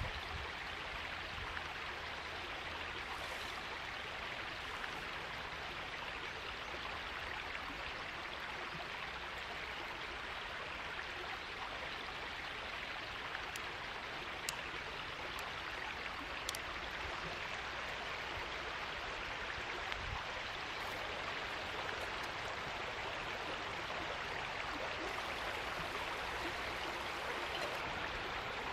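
Small forest stream flowing steadily, a continuous even rush of water with a few faint clicks over it.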